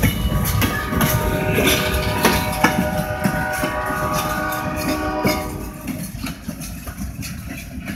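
Freight train's covered hopper cars rolling past with rumbling wheels and repeated clicks over the rail joints, with steady tones ringing above them for the first five seconds or so. The sound fades as the end of the train moves away.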